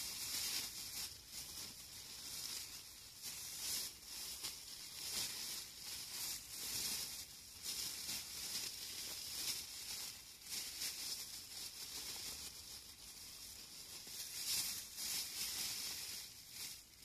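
Plastic bag rustling and crinkling in uneven spells as hands rummage through it.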